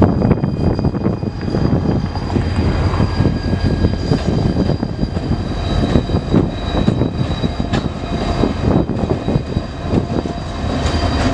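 Diesel-electric locomotives of a departing freight train passing close by at low speed, their engines running loudly and steadily, with thin steady high-pitched whines over the low engine sound.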